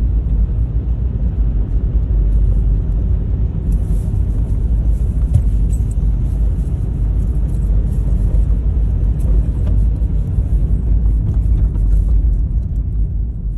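Steady low rumble of a car's road and engine noise heard from inside the cabin while driving, easing off slightly near the end.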